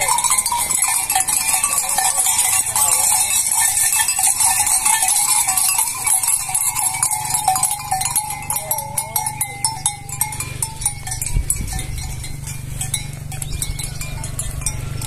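Flock of sheep on the move, their neck bells clanking with a few bleats.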